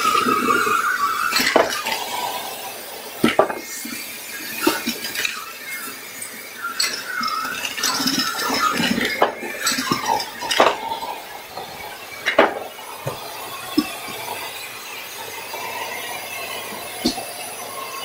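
Vacuum cleaner running with a whistling squeal at the suction, while batteries clink and rattle irregularly as they are sucked up through the metal wand and hose.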